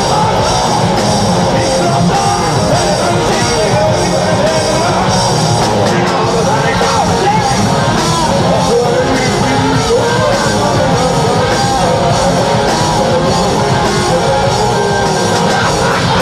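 A five-piece alternative grunge rock band playing live and loud: electric guitars and bass over a full drum kit played hard.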